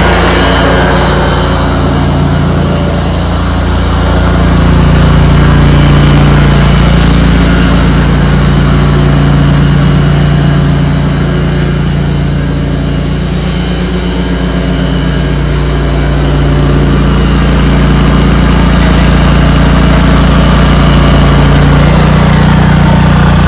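Cub Cadet 106 garden tractor's Kohler engine running steadily at working speed while it mows grass with the deck engaged. The loudness swells and dips slowly a couple of times.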